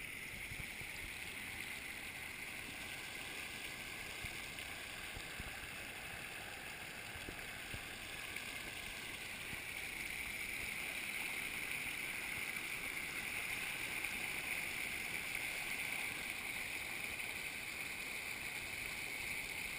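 Flooded creek running high and fast, the brown water rushing steadily and washing over the edge of a paved trail. It grows a little louder about halfway through.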